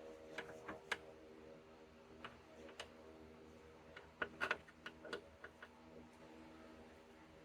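Light, irregular metallic clicks from a hand tool working the T25 Torx bolts that hold the door lock actuator inside a Mini Cooper door, in two small clusters about half a second in and around four seconds in, over a faint steady hum.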